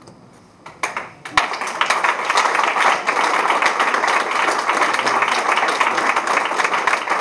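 Audience applauding: a few separate claps about a second in, then dense, steady applause.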